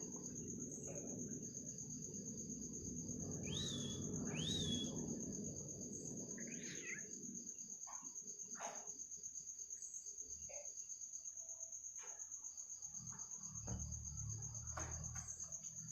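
Crickets trilling in a steady, fast-pulsing high chirp. Over it come a few short bird calls: two quick rising-and-falling notes about four seconds in, another call a couple of seconds later, and scattered brief chirps. A low rumble runs under the first few seconds and returns near the end.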